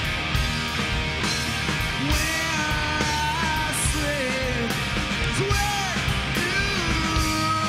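Live rock band playing: distorted electric guitars, bass and drums with cymbal crashes. A male lead vocal comes in about two seconds in, sung strained, near shouting.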